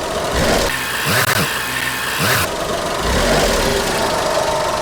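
Car engine running as the car rolls slowly, with two brief swells of hissing noise about a second and two seconds in.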